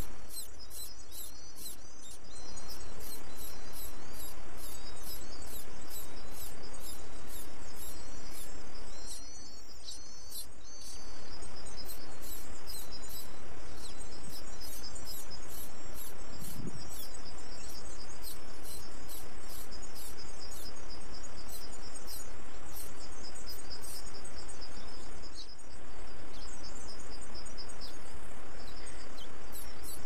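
Insects chirping in an even rhythm, about two chirps a second, with thin high chirps mixed in over a steady hiss.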